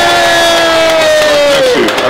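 Large outdoor crowd cheering, with one long held cry standing out above it that falls away near the end.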